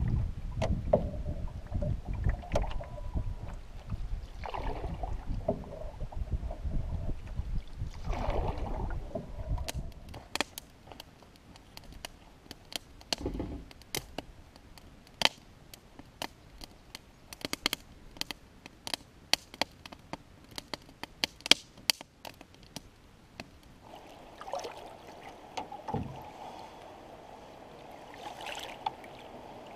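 Canoe paddle strokes swishing and splashing in the water with wind rumbling on the microphone, a stroke every few seconds; then, from about ten seconds in, a wood fire crackling with sharp irregular pops in a steel fire pit; near the end, faint gurgling water along the canoe.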